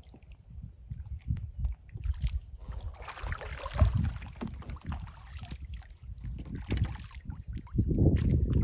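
Irregular bumps and knocks on a small kids' kayak as it is handled on the water. A louder low rumble like wind on the microphone comes in near the end.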